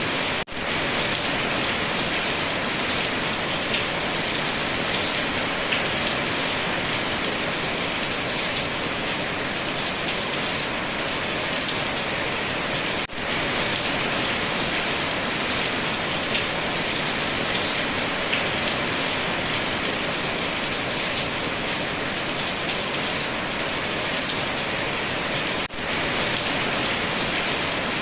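Steady heavy rain falling on a surface, a dense even hiss with scattered drop ticks. The sound drops out for a split second three times, about twelve and a half seconds apart.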